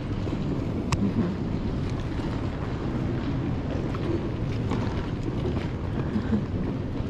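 Steady low rumble of suitcase wheels rolling over pavement, with wind buffeting the microphone and a sharp click about a second in.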